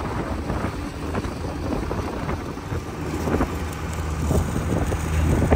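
Passenger boat's engine running steadily under way, a low hum that grows clearer about halfway through, with wind buffeting the microphone.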